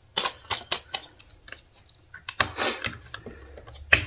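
Small clear plastic compartment case and loose metal jump rings being handled, making sharp clicks and light rattling: a quick run of clicks in the first second, a denser rattle about two and a half seconds in, and a single click near the end.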